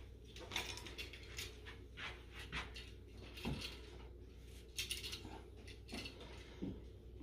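Faint, scattered small clicks and scrapes of a screwdriver and wires being worked on a wall switch's terminal screws, as the wires are taken off the old switch.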